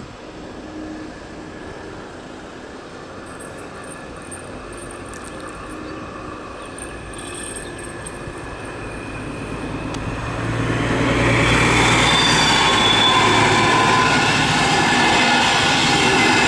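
Regional train hauled by a BR 218 diesel-hydraulic locomotive with n-type coaches, approaching and passing. It grows louder over the first ten seconds. From about eleven seconds in the rumble of the engine and wheels is loud, with a high, steady wheel squeal over it.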